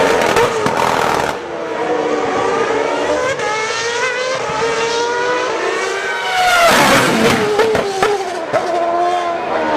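High-revving racing car engine at full throttle, its pitch climbing steadily through the middle. It is loudest about two-thirds of the way in, as the car goes by.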